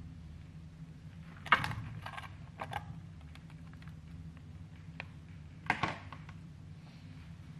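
Pieces of marinated tofu tipped from a plastic tray clatter into a nonstick frying pan in a few short spells, the loudest about a second and a half in and another near six seconds in. A steady low hum runs underneath.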